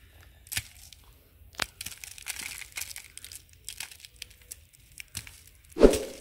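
Hands crumbling a clod of moist soil, making soft, scattered crackling and crunching with a few sharper clicks as the dirt breaks apart, then a much louder burst near the end.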